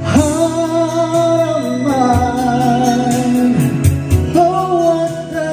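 Karaoke song playing loudly through speakers from a karaoke player: a singer holding long, wavering notes over instrumental backing.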